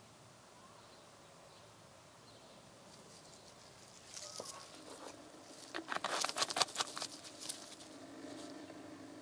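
Gloved hands handling a small plastic oil-sample bottle. After a few quiet seconds come rapid rustling and rubbing of glove on plastic, loudest about six to seven seconds in.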